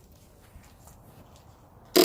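A pause with a few faint clicks, then near the end a loud electrical buzz cuts in as the starter button of a 1997 Kawasaki ZX6R is pressed. It is the starter relay chattering instead of the engine cranking, the sign of a battery too weak to turn the motor over.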